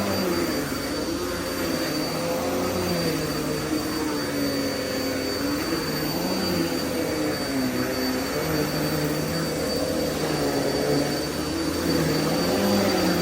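Vacuum cleaner running steadily, its motor hum wavering up and down in pitch, with a thin high whine held throughout.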